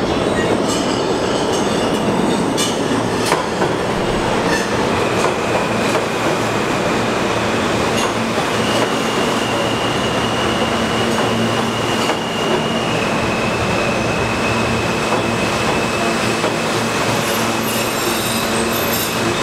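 R160 subway train running into an underground station and past the platform. Its wheels click over the rail joints in the first few seconds, then a long, steady, high-pitched squeal sets in as the train slows.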